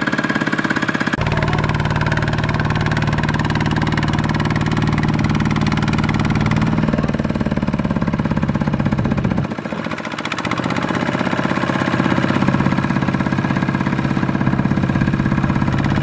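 Two-wheel walking tractor's diesel engine running hard under load, trying to pull a trailer full of rice sacks out of mud. It picks up about a second in, drops off briefly a little past halfway, then picks up again.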